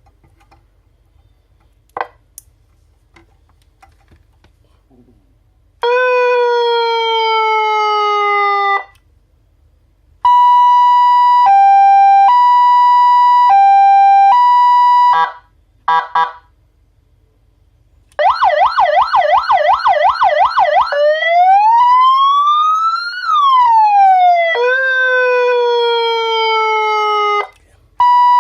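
A 12-volt five-tone electronic siren horn is sounded through several of its tones in turn, with short gaps between them. After a single click and a few seconds of quiet, it plays a falling tone, then an alternating high–low two-tone, then a fast warble. Next comes a slow wail that rises and then falls, another falling tone, and near the end the high–low two-tone again.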